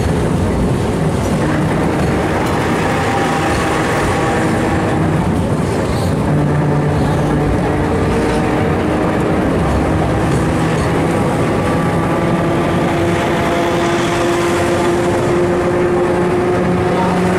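Historic Porto tram running along its rails, heard from inside the car: a steady rumble and rattle of wheels on track, with a whine that shifts in pitch as the tram changes speed.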